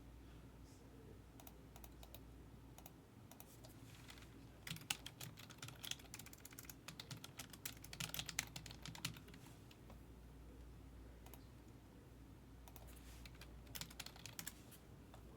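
Faint typing on a computer keyboard, a long run of quick keystrokes about five seconds in and a shorter run near the end.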